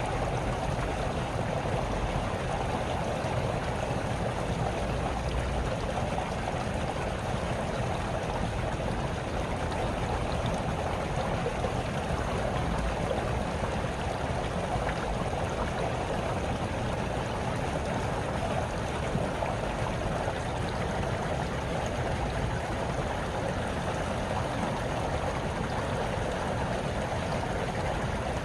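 A small brook trickling and babbling over its bed, a steady, even flow of water.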